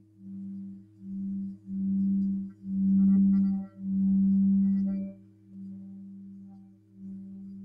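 Tibetan singing bowl rubbed around the rim with a mallet: a deep hum that swells and fades in pulses of about a second each, louder in the middle, with a light buzzing on top. Beneath it, another bowl's lower tone keeps ringing steadily.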